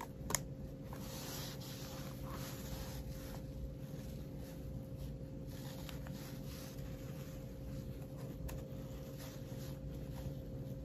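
Hands handling a smartphone and screen-protector packaging: soft rustles and light taps, with one sharp click shortly after the start. A steady low hum runs underneath.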